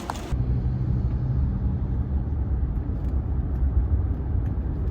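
A steady low rumble with little high end, sounding muffled.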